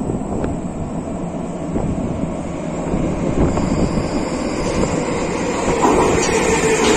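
Prague metro train approaching through the tunnel into an underground station: a steady rumble that builds up, with a whine of thin tones coming in about halfway and growing louder as the train nears the platform.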